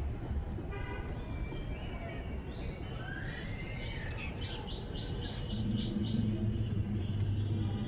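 Birds calling in a tree: a short call about a second in, a rising whistle near the middle, then a quick run of short high chirps through the second half. A low steady hum joins after about five seconds.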